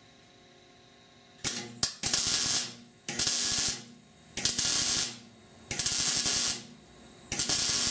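Wire-feed (MIG) welder laying short stitch welds on thin, rusty sheet steel: five or six crackling bursts of arc, each under a second, coming about every second and a half after a quiet start. The short stitches keep the heat from burning through the rust-thinned metal.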